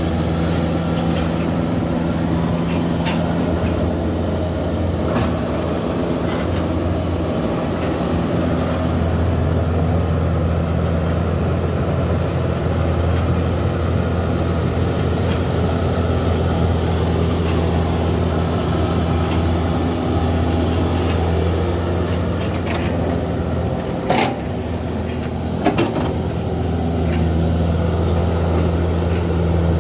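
Hitachi crawler excavator's diesel engine running steadily under hydraulic work, with a few sharp knocks, the loudest about three-quarters of the way through.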